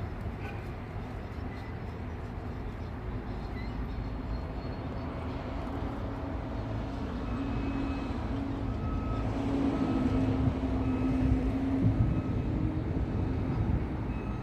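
Steady traffic rumble from a heavy vehicle's engine running close by, swelling louder in the second half. A short electronic beep repeats over the rumble from about halfway through.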